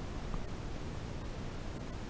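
Steady hiss with a low, uneven rumble: the camera's own microphone noise as it is carried along.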